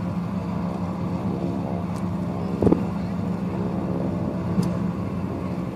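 StuG assault gun's engine idling steadily, with a short sharp knock about two and a half seconds in.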